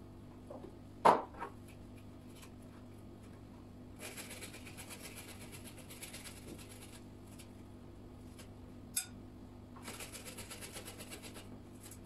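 Garlic cloves being peeled by hand over a plastic cutting board: the dry, papery skins crackle and rustle in two stretches of fast scratching. A single sharp knock about a second in.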